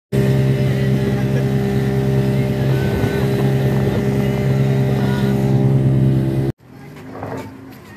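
Boat engine running with a steady drone, heard from on board. It cuts off abruptly about six and a half seconds in, leaving quieter background sound.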